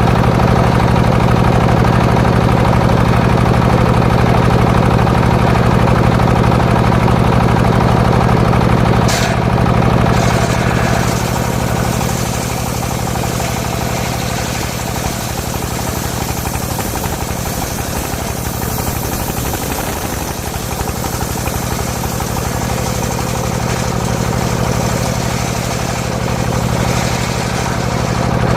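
Engine powering a homemade circular-saw rig, running steadily. About nine seconds in there is a sharp click, after which the sound drops a little and turns more hissy.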